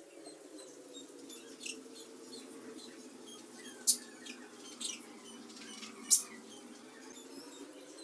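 Rose-ringed parakeet giving faint high chirps and ticks, with two short, sharp shrill notes, one about four seconds in and one about six seconds in.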